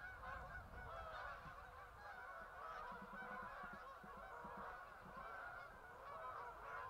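A flock of geese honking in flight, many calls overlapping in a continuous chorus.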